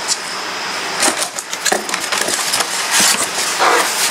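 Packaging being handled while a sewing machine is unboxed: a run of crinkling, rustling and light knocks.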